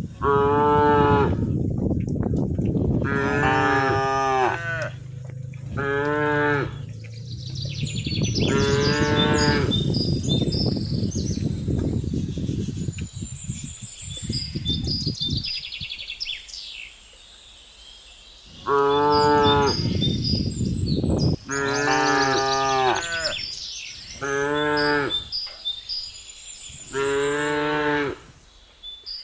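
Cattle mooing, about eight long moos in two runs with a quieter gap of several seconds between them.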